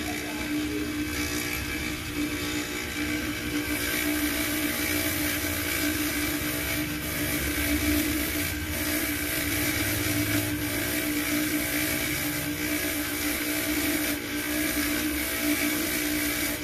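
Bench polishing motor running with a steady hum, its black polishing wheel spinning on a tapered spindle while a coin is held against the wheel to polish it.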